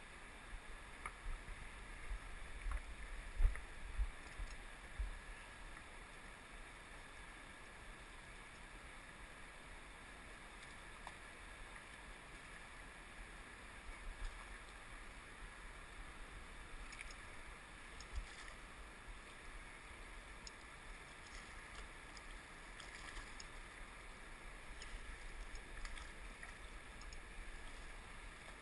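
Steady rushing of a fast river current, with a few low thumps on the microphone in the first five seconds and faint scattered ticks later on.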